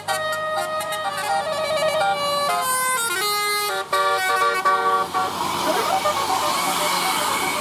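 Bus telolet horn, a set of electric air-horn trumpets, playing a quick tune of stepped notes. About five seconds in the tune stops and a steady hiss takes over.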